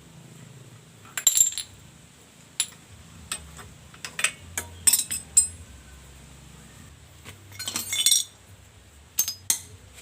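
Small hard parts clinking and knocking in scattered clusters of sharp, short clicks, with two busier bursts about a second in and near eight seconds in.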